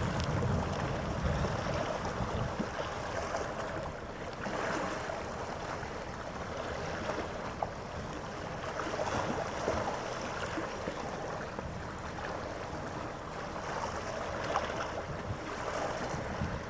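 Harbour ambience: a steady wash of noise with a faint steady hum, and wind rumbling on the microphone over the first couple of seconds.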